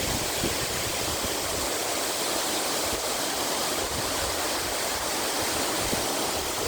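Lisbon Falls waterfall, a steady rush of falling water.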